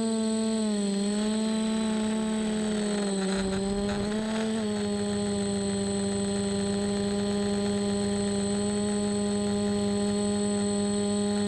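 DJI F450 quadcopter's motors and propellers, heard from the camera mounted on it: a steady hum with a clear pitch and a thin high whine above it. The pitch dips briefly about a second in and again around three to four seconds in as the motors slow, then holds steady.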